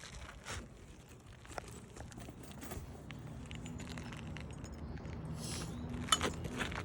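Faint crackling and light clicks of asphalt shingles being handled and lifted, with a low steady hum growing through the second half.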